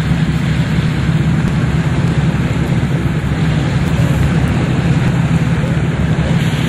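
Motorboat engine running steadily under way, a loud low drone with a rushing hiss over it.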